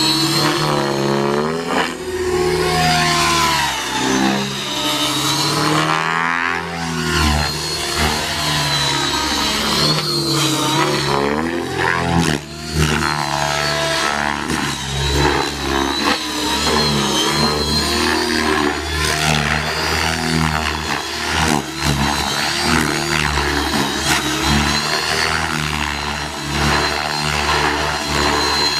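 Electric T-Rex 600E RC helicopter flying aerobatics: the rotor's buzz and a high motor whine rise and fall in pitch again and again as it throws itself through manoeuvres.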